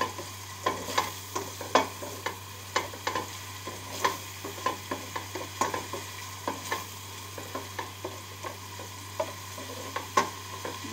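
Chopped onion and garlic sautéing in hot oil in a stainless steel pot, sizzling steadily while a slotted plastic spatula stirs them, clicking and scraping against the pot many times and irregularly, the strokes thinning out in the second half.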